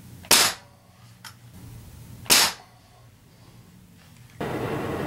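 Two shots from a tuned .177 Ruger Air Magnum break-barrel spring-piston air rifle, each a sharp, short crack, about two seconds apart.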